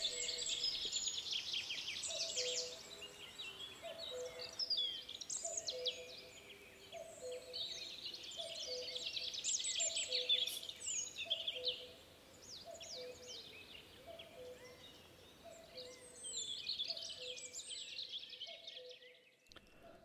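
Spring woodland bird chorus of high twittering songs. Under it, about two seconds in, a low two-note call starts and repeats steadily, the second note lower than the first, until near the end.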